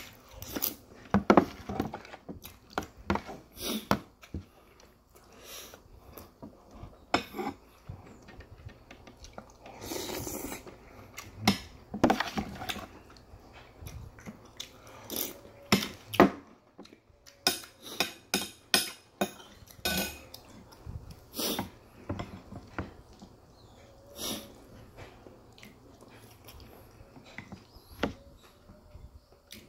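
A person eating army stew: a metal spoon and fork clink and scrape against a bowl and a plastic container, with chewing in between. The clicks come irregularly, several a second at the busiest moments.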